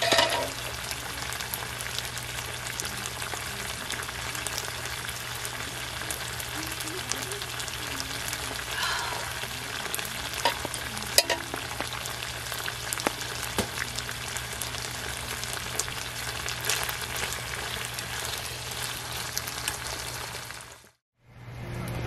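Food in a thick red sauce sizzling and crackling in a small frying pan on a camping burner, with a few sharp clicks, the loudest about eleven seconds in. The sizzling cuts off suddenly just before the end.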